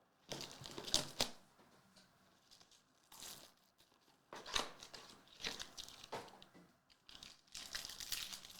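Trading card pack wrappers being torn open and crinkled in irregular rustling bursts, with two sharper rips about a second in.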